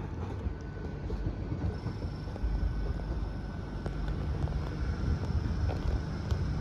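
Low, steady rumble of diesel multiple-unit trains running, with a faint steady high whine joining about two seconds in, and wind on the microphone.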